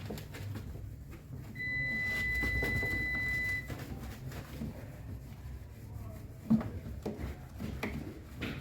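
A single steady electronic beep, about two seconds long, from an appliance, over low handling sounds and scattered knocks. A sharp knock comes about six and a half seconds in.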